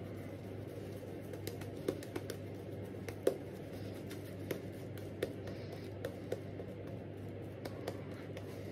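Zenith silvertip badger shaving brush worked over a lathered cheek and jaw: soft wet brushing with scattered sharp little clicks and crackles from the lather.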